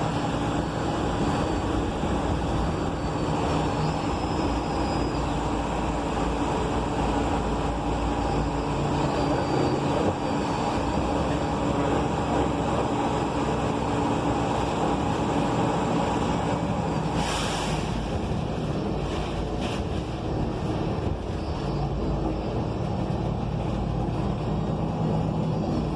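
Inside a 2020 ENC Axess bus under way: its Cummins Westport L9N natural-gas engine and Voith automatic transmission drone steadily under road and tyre noise. A short hiss of air comes about seventeen seconds in.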